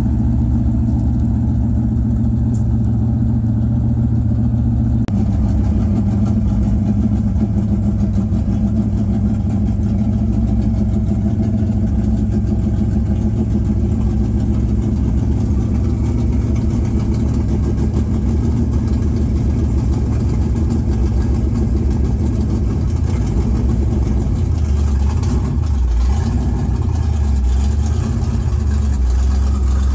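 Dirt-track stock car's engine idling loud and steady, a deep even note that wavers a little near the end.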